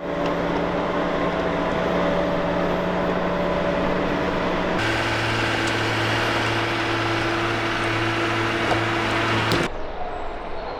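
Heavy machinery engines running steadily, as a mechanical hum with noise over it, in spliced clips. About five seconds in, the hum changes abruptly to a lower, different pitch. Near the end it cuts to a quieter, steadier running sound.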